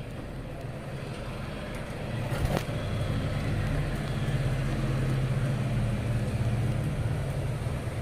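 A steady low motor hum that grows louder about two seconds in, with a single sharp click shortly after.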